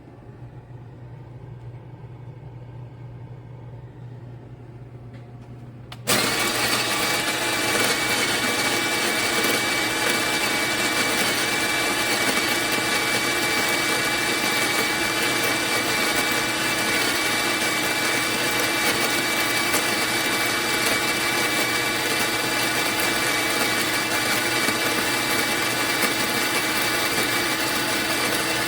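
Fellow Opus conical burr coffee grinder switched on about six seconds in and running steadily, a loud motor whir with a steady high whine, after a faint low hum.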